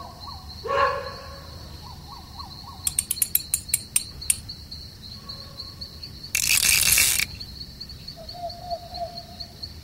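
A cricket chirps in a steady, fast high pulse. Over it come a quick run of sharp clicks about three seconds in and a loud burst of rushing noise, about a second long, a little past the middle.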